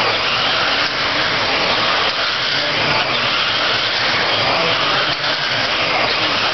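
A pack of electric RC dirt-oval cars with 13.5-turn brushless motors racing around a dirt oval. Their motors and tyres make a steady, dense whirring that does not let up.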